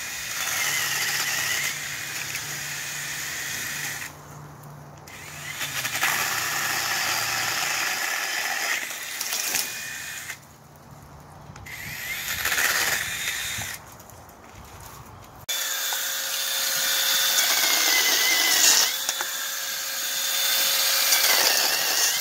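Sainlogic 6-inch brushless battery mini chainsaw running in four bursts of a few seconds each, cutting through branches, with short pauses between cuts.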